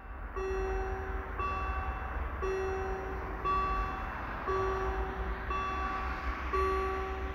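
Outro music: a simple electronic tune of plain, beep-like held notes, a new note about every second, over a low rumble.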